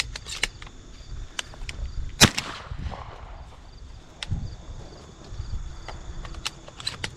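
Crickets chirping steadily in the field, with scattered sharp clicks and one louder sharp crack about two seconds in.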